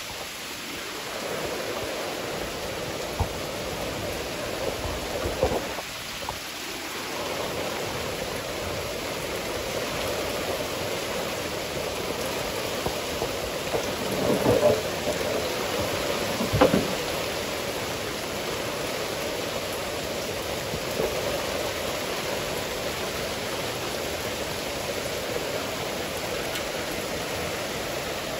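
Heavy thunderstorm rain falling steadily, with a few short sharp cracks over it, the loudest about two-thirds of the way through.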